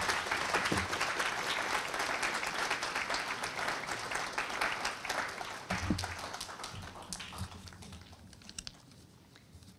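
Audience applauding after a talk, the clapping dying away over the last few seconds, with a few soft low thumps about six seconds in.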